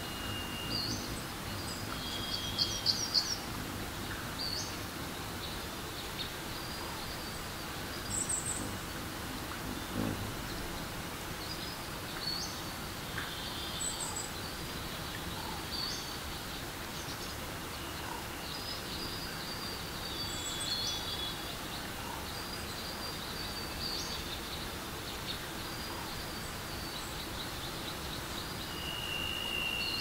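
Forest stream running with a steady rush of water, and small birds chirping and calling above it throughout. A quick run of chirps about three seconds in is the loudest moment.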